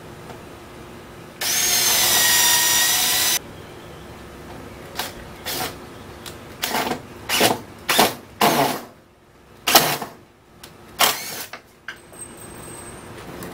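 Power drill-driver driving screws into the wooden corner braces of a plywood frame. One steady two-second run, then a string of about a dozen short trigger pulls as the screws are seated snug.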